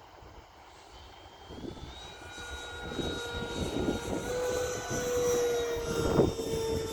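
Electric ducted-fan whine of an 80mm Freewing Avanti S RC jet in flight, a steady high tone growing louder from about two seconds in as it passes closer, with wind gusting on the microphone underneath.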